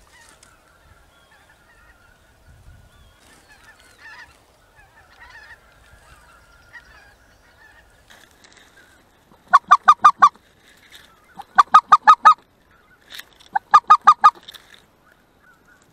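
Geese honking: faint calls from a flock overhead at first, then three loud bursts of rapid, evenly spaced honks, five or six to a burst, about two seconds apart.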